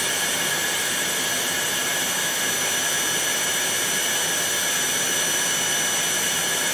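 Vacuum cleaner running steadily with a high whine, sucking air through a CNC router's vacuum table to hold the workpiece down.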